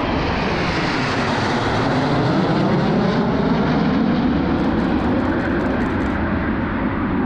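Formation of Aermacchi MB-339 jet trainers, each with a single turbojet, flying past overhead: a loud, steady jet rush that swells a little past the middle. A short, quick run of clicks about two-thirds of the way through.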